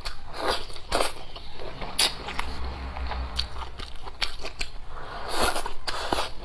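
Close-miked eating sounds of a person biting into and chewing braised pork on the bone, a run of sharp wet bites and crackles.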